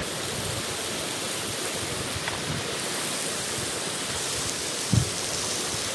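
Bacon sizzling in a frying pan over a campfire: a steady hiss, with one brief low thump about five seconds in.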